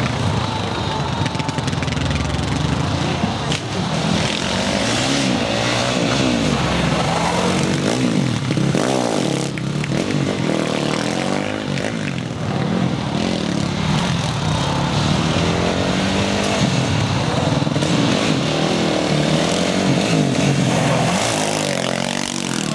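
450cc single-cylinder quad bike engine revving up and down again and again, its pitch rising and falling in repeated sweeps.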